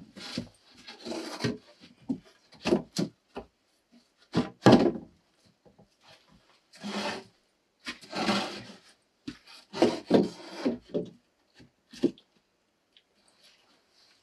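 Sawn pine boards being shifted and set down on a timber floor frame: irregular wooden knocks and clatters mixed with several drawn-out scrapes of board rubbing on board, each about a second long. The last knock comes about twelve seconds in.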